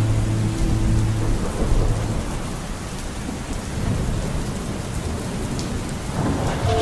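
Steady heavy rain with low rumbling thunder. A held music chord fades out about a second and a half in.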